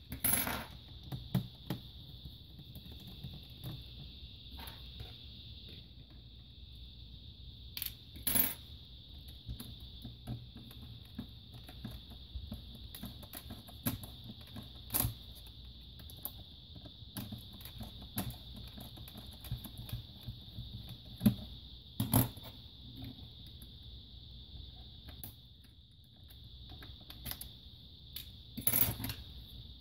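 Scattered sharp clicks and knocks of a laptop's plastic and metal parts being handled during disassembly: screwdrivers set down and the display and upper chassis worked loose. The loudest are two knocks about 21 and 22 seconds in. A steady high-pitched hiss runs underneath.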